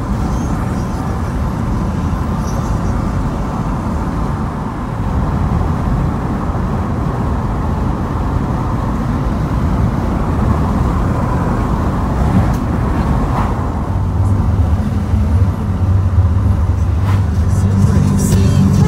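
A car driving at speed on a highway, heard from inside the cabin: steady engine and tyre road noise. A steadier low hum comes in about fourteen seconds in.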